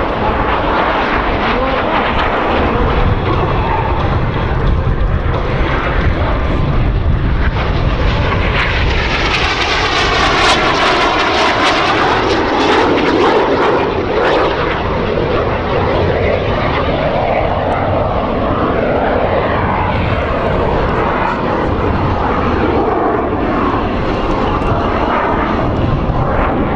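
Canadair CT-114 Tutor jets' turbojet engines, loud and continuous. About nine seconds in the noise swells and sweeps in pitch as the jets pass close, then it eases back to a steady drone.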